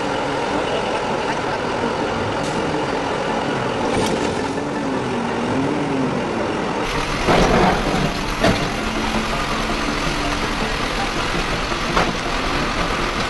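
Heavy dump truck engines running steadily, with a few loud bursts and sharp knocks in the second half.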